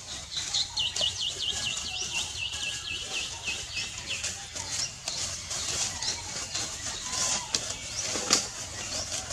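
A bird calls a rapid series of short, slightly falling chirps, about four or five a second, for the first four seconds, over a steady high hiss. Dry leaves crackle and rustle throughout as the monkeys move, with a louder rustle near the end.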